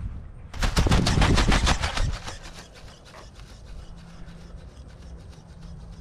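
RC ornithopter's wings flapping, driven by brushless servos: a rapid, even rhythm of sharp snaps, loud for about the first two seconds and then fainter over a steady low hum.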